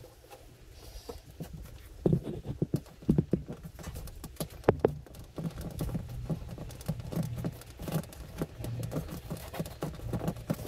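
Irregular light knocks and clicks from hands working with tools and fittings, over a low steady hum; the knocks start about two seconds in and come thickly after that.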